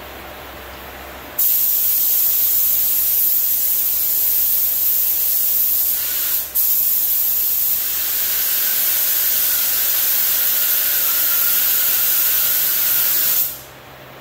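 Adhesion promoter being sprayed onto a plastic bumper cover: a loud, steady hiss of spray. It runs for about five seconds, pauses briefly, then runs for about seven more before cutting off.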